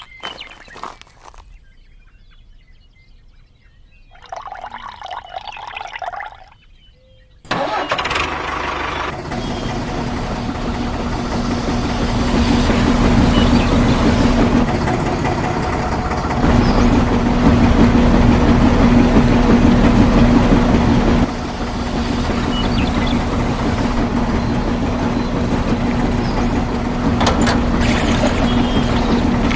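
A small motor starts suddenly about a quarter of the way in and keeps running steadily with a constant hum.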